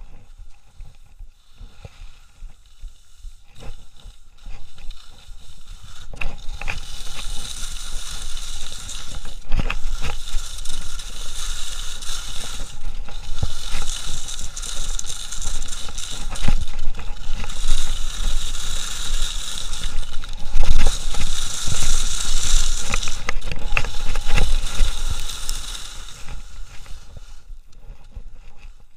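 Skis scraping and carving over a groomed snow piste during a fast run, with sharp clicks of the edges and wind buffeting the microphone. The noise builds about six seconds in and fades near the end.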